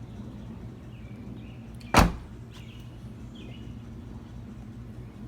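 A 2015 Nissan Versa's car door shut once, a single sharp thump about two seconds in, over a steady low hum.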